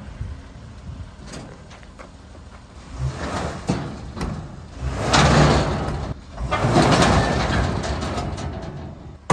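Jeep Wrangler being driven with a locked wheel: the engine revs and the stuck tire scrapes and drags over the trailer deck and gravel in three noisy surges, about three, five and six and a half seconds in. The wheel is jammed by what the owner thinks is a seized brake rotor.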